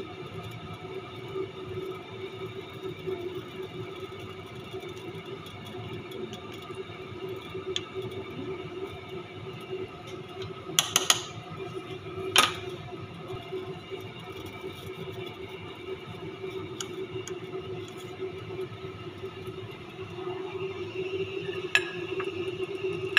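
Background music of steady sustained tones, with a few sharp metal clinks in the middle from a serving spoon against a steel cooking pot.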